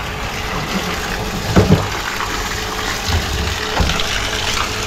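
Engine-driven water pump running, with water gushing steadily. A couple of brief knocks come about one and a half and nearly four seconds in.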